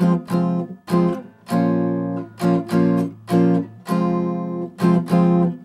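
Hollow-body archtop jazz guitar strumming a chord rhythm: short, cut-off chord stabs mixed with two longer held chords, in a syncopated comping pattern.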